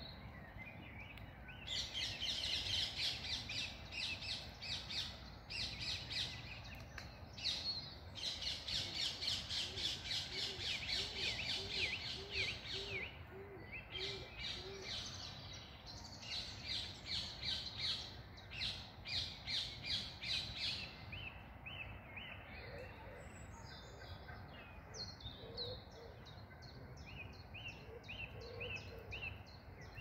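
Park birds chirping and singing in dense bursts of rapid high notes, thinning to looser separate chirps later on. Partway through, a low call repeats about eight times, evenly spaced.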